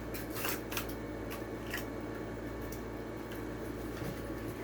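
Packaging of a diecast toy car being handled and opened: a few short crackles and clicks in the first couple of seconds, then fainter handling noise.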